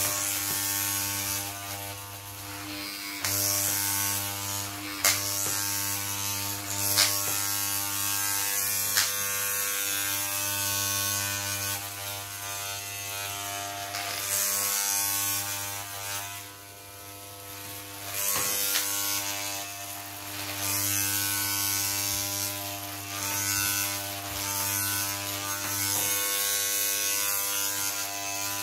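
Corded electric hair clippers buzzing steadily while cutting hair, the hiss of the blades rising and falling as they move through it. A few sharp clicks in the first third, and the buzz briefly dips a little past halfway.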